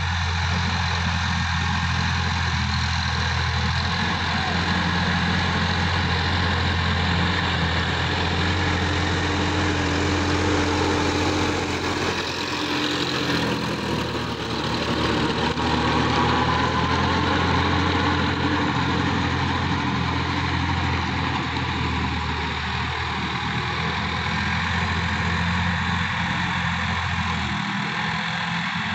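Sonalika DI-50 RX tractor's diesel engine running steadily under load while driving a rotary tiller through dry soil. The sound grows slightly louder and changes in tone about halfway through.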